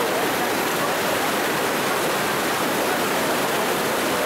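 River whitewater rapids rushing: a steady, even wash of water noise.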